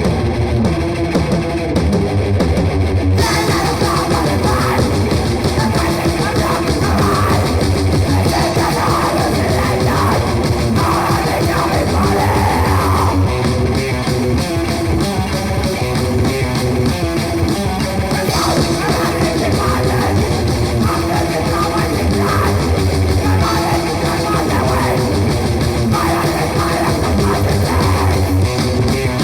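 Raw grindcore track: heavily distorted electric guitar over bass and drums, loud and dense throughout. About three seconds in, the sound suddenly thickens into a fuller, noisier wall.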